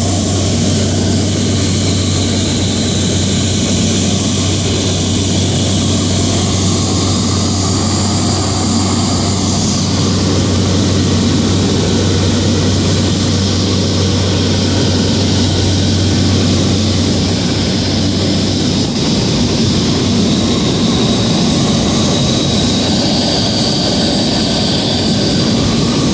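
Light aircraft's propeller engine droning steadily, heard from inside the cabin of a high-wing plane in flight. Its low hum changes tone about eighteen seconds in.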